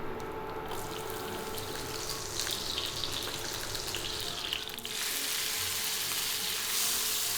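Cooking oil sizzling and crackling in a hot pan. About five seconds in, the sizzle turns louder and fuller.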